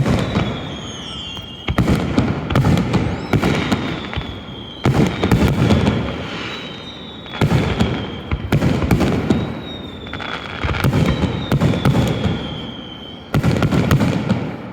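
Aerial fireworks shells bursting in a series of about six loud booms a couple of seconds apart, each followed by a spreading crackle. Thin high whistles slide down in pitch between some of the bursts.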